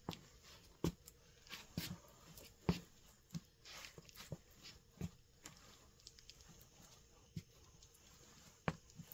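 Footsteps and shuffles of New Balance 574 suede sneakers with gum rubber soles on a cork floor: a string of irregular soft taps and scuffs, with a lull partway through.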